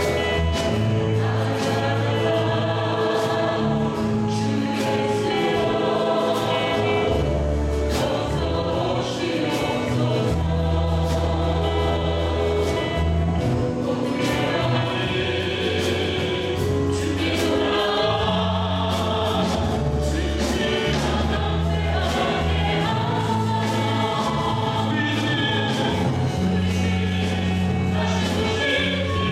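A Korean worship song sung by a small group of male and female voices, with acoustic guitar and the beat of Korean traditional barrel drums (buk).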